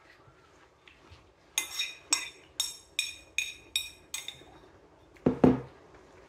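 Metal spoon scraping and clinking against a ceramic bowl: about seven ringing clinks in quick succession, followed about five seconds in by a louder, duller knock.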